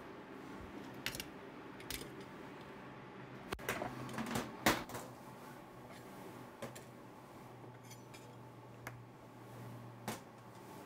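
Metal kitchen utensils, a griddle spatula and a pizza cutter, clinking and knocking as they are picked up and set down on a cutting board. The sound comes as a handful of separate clatters, the loudest cluster about four to five seconds in.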